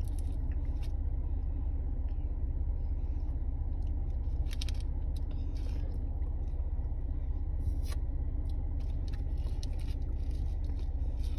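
Steady low rumble of a car's interior, with faint scattered crinkles and ticks from a paper candy packet and candy stick being handled.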